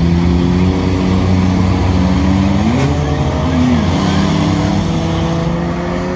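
Engines of several street cars and pickup trucks racing together, running loud and hard, with one engine revving sharply up a little under three seconds in and another dipping and recovering about a second later.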